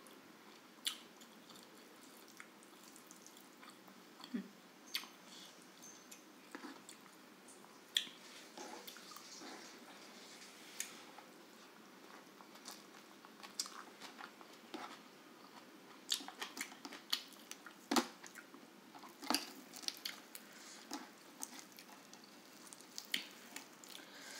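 Faint close-up eating sounds: a person chewing and biting a meal of grilled chicken, rice and stir-fried water spinach eaten by hand, with many short wet mouth clicks and smacks scattered throughout.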